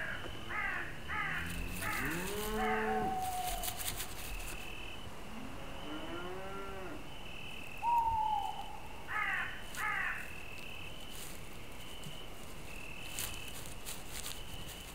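Cattle mooing, two low calls that rise and hold, with high chirping on and off in the background.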